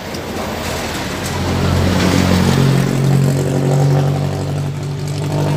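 A motor vehicle driving past on the road: its engine grows louder over the first two seconds, its pitch drops a little about halfway through as it goes by, and it stays loud to the end.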